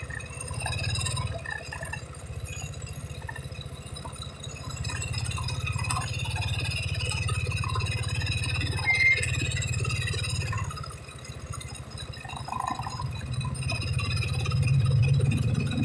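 Car engine idling and pulling away gently in stop-and-go traffic, heard from inside the cabin. Its steady low hum swells and fades as the car creeps forward and stops, with light rattles from the car's interior.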